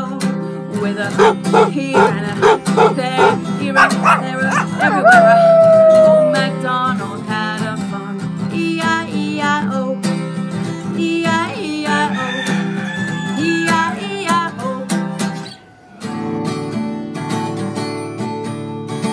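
Strummed acoustic guitar with a woman singing and doing animal noises in her voice, including a long, drawn-out falling call about five seconds in. The guitar stops for a moment a little before the end, then strumming resumes.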